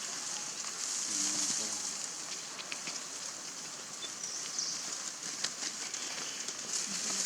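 Outdoor ambience: a steady high hiss with scattered small clicks and crackles, and a faint voice briefly about a second in.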